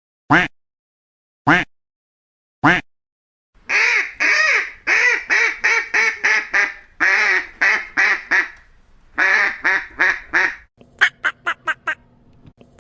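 Duck quacking: three single quacks about a second apart, then a long run of quick quacks lasting about seven seconds. Near the end comes a fast series of short clipped quacks over a faint steady hum.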